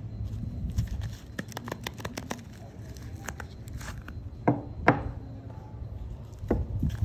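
Knife cutting into bars of dry soap: a run of short crisp cuts and taps, with two louder chops about halfway through and another near the end.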